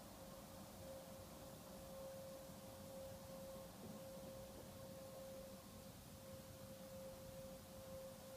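A faint, steady hum held on one pitch, with a fainter higher overtone, over background hiss.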